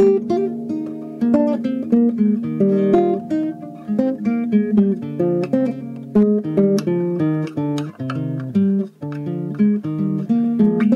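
Instrumental music on acoustic guitar: a run of quick plucked notes and chords with no singing.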